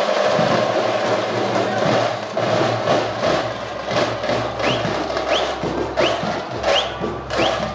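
Tamate frame drums beaten fast with sticks in a dense, steady rhythm. From a little past the middle, short rising whistles repeat over the drumming.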